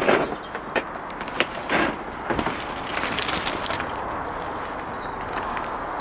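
Dry twigs, brambles and ivy rustling and snapping close to the microphone as someone pushes through a tangled thicket, in irregular crackles and swishes.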